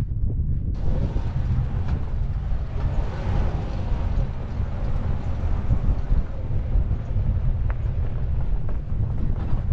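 Pickup truck driving over a sandy desert track, heard as a steady low rumble with heavy wind buffeting on an outside-mounted microphone. A wider rushing hiss joins about a second in.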